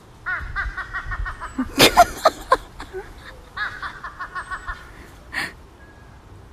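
A crow giving a quick run of high, laugh-like cackling notes, about ten a second, twice over: once near the start and again a little past the middle. In between come louder bursts of laughter.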